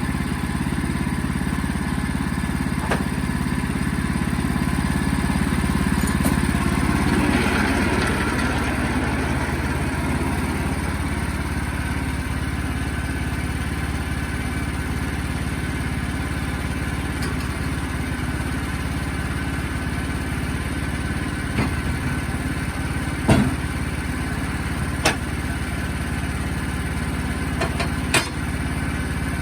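Sawmill's engine running steadily, swelling louder for a few seconds near the start, with a few sharp knocks in the latter half.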